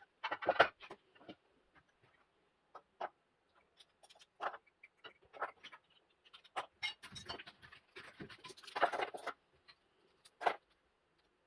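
Plastic and metal control-panel parts, pushbutton actuators and contact blocks, clicking and knocking as they are handled, fitted together and set down on a wooden tabletop. The clicks are scattered, with a denser clatter about nine seconds in and a single sharp click near the end.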